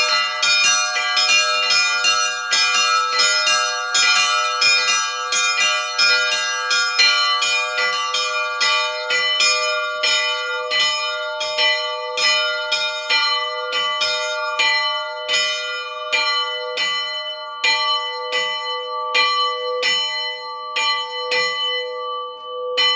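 Several church bells ringing together, struck in quick succession over their lingering tones. The strikes come fast at first, then slow and thin out in the second half as the peal winds down.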